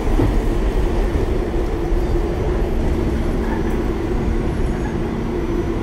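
New York City subway train running, heard from inside the car: a steady low rumble with a steady hum over it.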